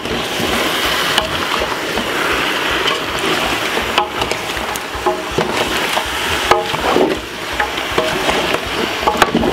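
Wooden spoon stirring pieces of curry chicken in a large metal pot over medium heat, with a steady sizzle under the scraping and a few sharp knocks of the spoon against the pot.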